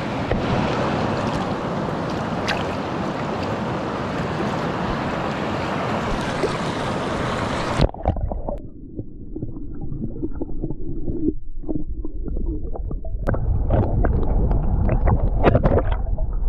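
Rushing mountain creek water, a steady full hiss. About eight seconds in it turns suddenly muffled, leaving a low rumble with scattered knocks.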